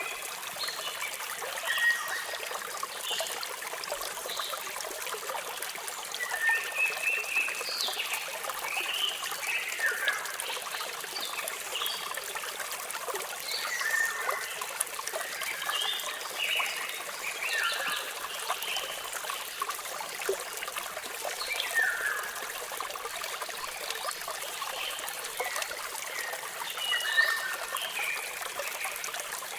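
A waterfall's steady rush of water, with birds chirping over it throughout in short calls and quick falling notes every second or two.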